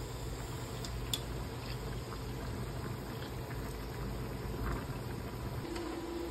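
Saucepan of pasta water at a rolling boil, bubbling steadily as the linguine is stirred, with a few light clicks. A steady hum comes in near the end.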